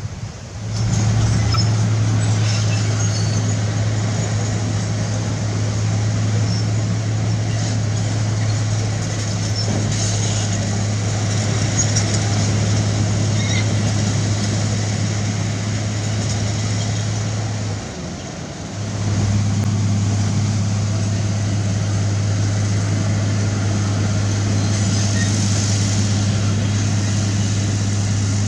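Heavy diesel construction machine running steadily at high revs with a constant low drone, which drops away for about a second two-thirds of the way through and then resumes. Light rattles and clinks sound above it.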